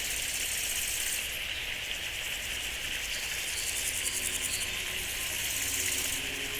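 Insects chirping in a dense, steady chorus, with a rapid high-pitched pulsing trill that stops about a second in and starts again near the end.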